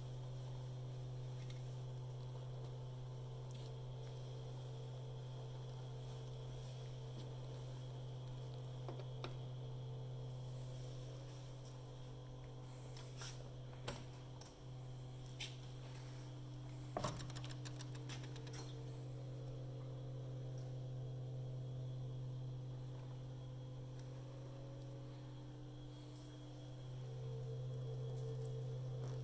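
Steady low machine hum, with a few short clicks and a knock about halfway through.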